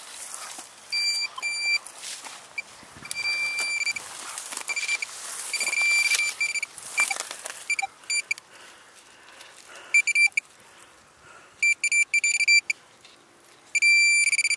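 Metal detector beeping while a target is dug out: short high beeps at one pitch, some in quick runs, over crunching and scraping of dry soil in the first half.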